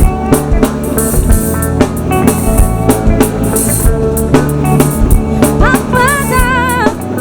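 Music with a steady drum-kit beat of kick, snare and rimshot over a bass line; about six seconds in, a wavering high melodic note enters briefly.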